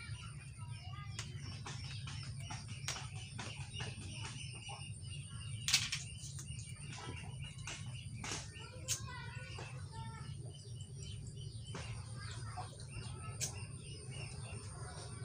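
Birds chirping over a steady low hum, with a few sharp clicks, the loudest about six seconds in.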